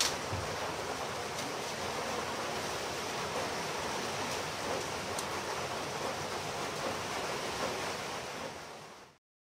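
Steady, even hiss of background room noise, with a click at the very start, fading out just before the end.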